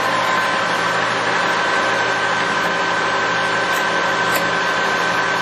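Mori Seiki MR-1500 geared-head toolroom lathe running under power, a steady whine from its headstock gearing over an even hiss.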